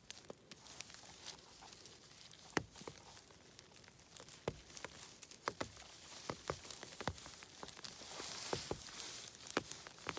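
A gloved hand picking mushrooms from moss and pine-needle litter: rustling of needles and grass with scattered sharp snaps and taps, and a louder rustle near the end.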